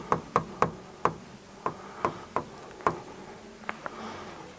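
A pen tip knocking against the glass of an interactive touchscreen whiteboard while writing words: about a dozen sharp, irregular taps, clustered in the first second and thinning out towards the end.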